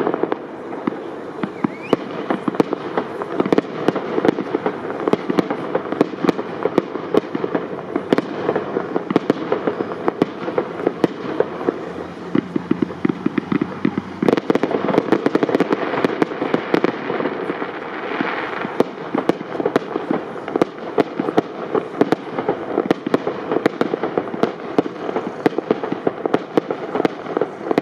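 Aerial fireworks display of shells up to 75 mm calibre: a dense, continuous barrage of bangs, several a second, over constant crackling.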